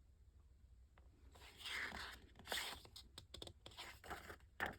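Soft rustling and scraping handling noises with a few light clicks, starting about a second and a half in.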